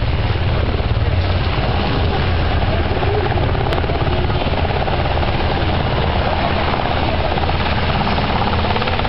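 A formation of three Colombian Air Force Arpía gunships, armed Sikorsky UH-60 Black Hawks, flying low overhead. Their rotor blades chop in a steady, rapid beat.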